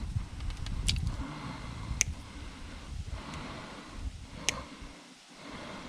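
Rustling and handling noise from wiring and parts being worked loose from a kitchen stove, with three sharp clicks spread about a second or two apart.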